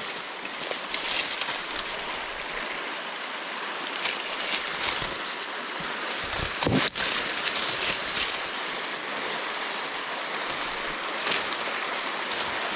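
Stream water rushing steadily, with a brief low thump a little past halfway through.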